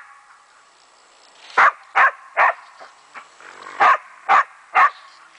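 German Wachtelhund barking at a raccoon dog: after about a second and a half without barks, two runs of three barks at about two a second, with a fainter bark between the runs.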